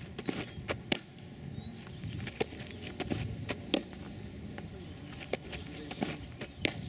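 Softball pitches smacking into a catcher's mitt with a sharp pop, once about a second in and again near the end, with lighter clicks and scuffs on the dirt between them.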